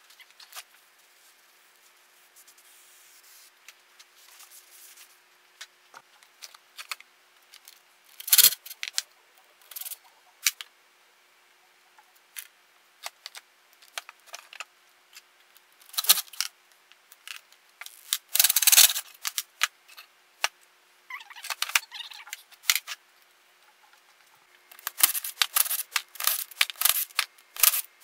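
Hand tools and metal parts being handled on an old small engine during disassembly: scattered metal clicks, knocks and scraping, with several louder clusters of clanks and scrapes spread through, the longest about two-thirds of the way in and another busy run near the end.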